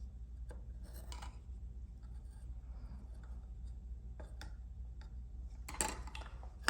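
Benchmade 941 Osborne folding pocket knife being handled: its blade and lock are being worked. There are a few faint clicks and rubs, then a louder cluster of clicks near the end.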